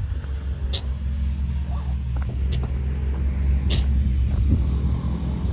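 Diesel engine of a motor grader running steadily with a low, even hum, with a few brief high clicks over it.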